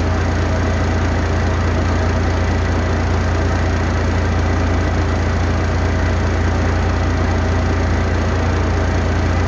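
A heavy vehicle engine running steadily at idle, an even low rumble that does not change.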